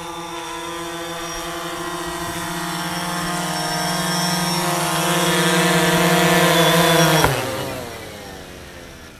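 DJI Phantom 3 Standard quadcopter hovering, its propellers humming steadily and growing louder. About seven seconds in there is a sharp click, and the motors spin down, the pitch falling steeply as the sound fades.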